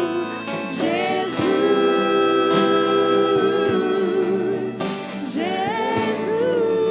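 Acoustic worship music: a singer holds long notes with vibrato over sustained instrumental accompaniment.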